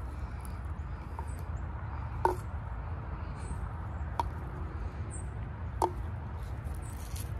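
Three sharp clicks, spaced about two seconds apart, as trekking-pole tips strike the ground, each with a brief metallic ring from the pole shaft. A steady low rumble runs underneath.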